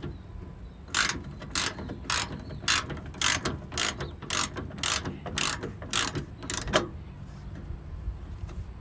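Socket ratchet clicking as it is swung back and forth on a bolt, about two strokes a second for some six seconds, then it stops.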